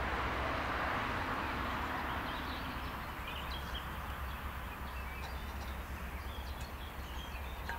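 A train on the line rolling away, its noise fading over the first few seconds, then small birds chirping.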